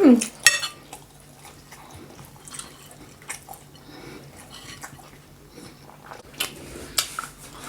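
Quiet eating sounds at a meal: chewing with scattered light clicks and ticks of cutlery against a plate, the sharpest near the start and again near the end.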